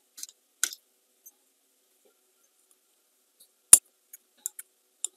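Screwdriver tip picking and scraping at the plastic sight glass in a Honda VFR750 clutch master cylinder, breaking the plastic out: scattered small clicks and scratches, with one sharp snap about three and a half seconds in.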